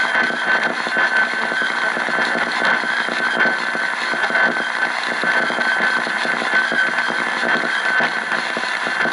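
AM radio receiver giving out loud, steady static and interference noise, with a high whistle running through it that swells and fades.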